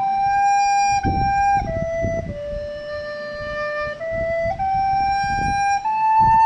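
Soprano recorder played legato with soft tonguing, in a slow pentatonic phrase. The notes step down to a long low note about two seconds in, then climb back up, each one clean and held.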